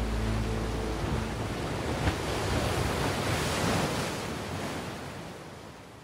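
Ocean surf: a wash of breaking-wave noise that swells to a peak midway and then fades steadily out. The tail of a music score dies away in the first second.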